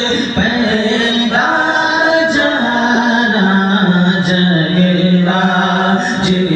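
A man singing a naat, an Urdu devotional song in praise of the Prophet, unaccompanied and amplified through a microphone. He sings long held, ornamented notes in a steady melodic line.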